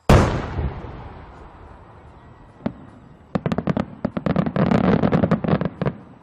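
Large aerial firework shell bursting: one loud bang with a long fading rumble, then, from about three seconds in, a dense run of sharp pops and crackles lasting about two and a half seconds.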